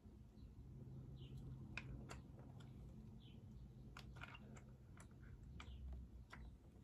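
Faint, scattered small plastic clicks and taps as a facial cleansing brush is handled and its brush head is worked on, over a faint low hum.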